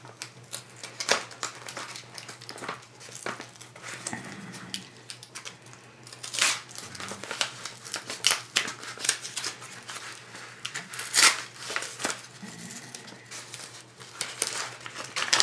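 Paper mailing envelope being handled and torn open: irregular crinkling and tearing of paper, with louder crackles about six and eleven seconds in.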